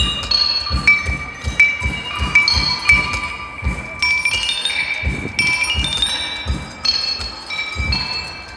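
Loudspeaker soundtrack of a light projection show: clusters of ringing, chime-like metallic clinks at a few repeating pitches over a low pulse of about three thumps a second.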